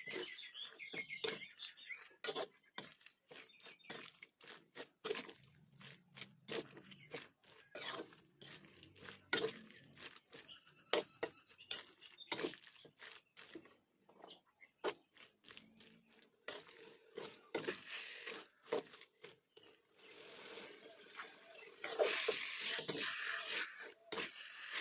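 Metal spatula scraping and knocking against a steel wok while turning raw chopped pork knuckle through chili curry paste, with the wet squish of the meat being folded. Irregular clicks and scrapes, with a longer, denser spell of scraping near the end.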